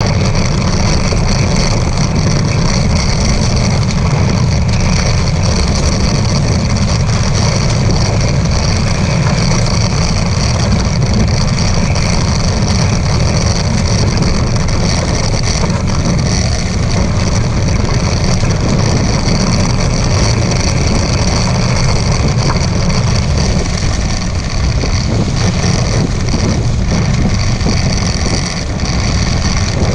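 Wind buffeting the microphone in a steady heavy rumble, with water rushing and hissing along the hulls of a Hobie 16 catamaran sailing at speed, near 20 knots.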